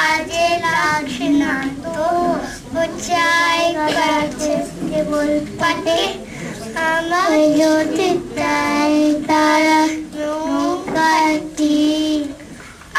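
Young child's voice singing a verse in a sing-song melody, with long held notes and short breaks between phrases.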